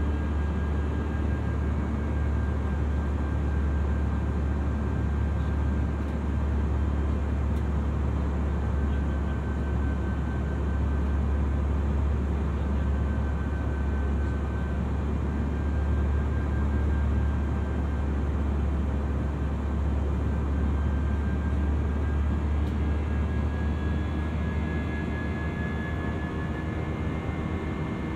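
Cabin noise of a Jetstar Japan Airbus A320-200ceo in flight, heard from a forward seat: a steady low rumble of engines and airflow. A faint high whine wavers on top of it and drifts up a little near the end.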